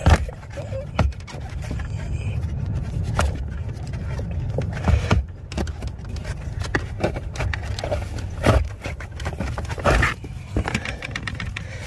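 A cabin air filter being worked out of its plastic housing behind the footwell panel of a Tesla Model 3: irregular clicks, knocks and scraping of plastic and filter frame over a low rumble.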